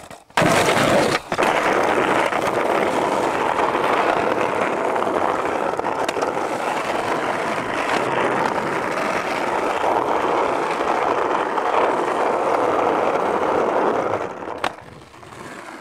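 Skateboard wheels rolling steadily over rough, cracked concrete, with a brief break about a second in. The sound fades out near the end and is followed by a single sharp knock.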